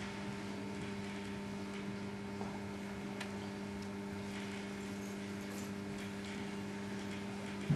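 Steady electrical hum with its overtones, unchanging throughout, over faint background noise; a short thump just before the end.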